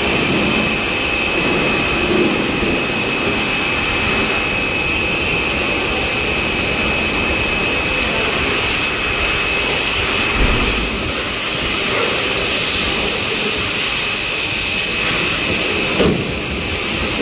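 Loud, steady rushing noise with a constant high whine over it, starting abruptly: a machine running in a car service workshop.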